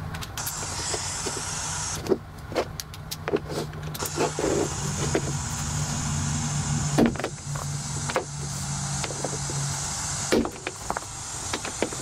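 Claw hammer striking XLR cable connectors on a plywood board: a series of sharp knocks, the loudest about seven seconds in, over a steady low hum.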